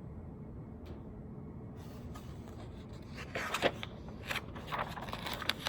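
Paper rustling as a picture book's page is turned: a few short crackly rustles and flaps in the second half, over steady low room noise.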